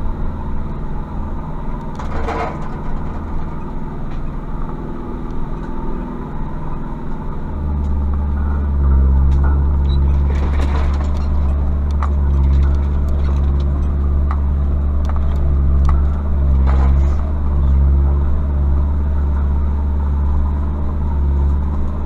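Mazda B2500 pickup's 2.5-litre turbodiesel running at a low, steady pace on a rough lane. Its drone grows louder and heavier about seven seconds in. Three brief scratchy scrapes are heard over the engine.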